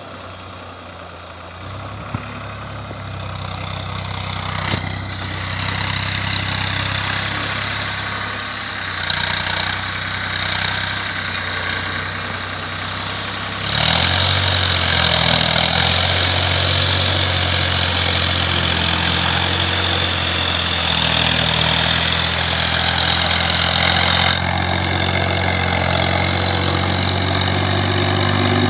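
Diesel farm tractor engine running steadily under load as it pulls a rotary tiller through a flooded rice paddy, getting louder about halfway through.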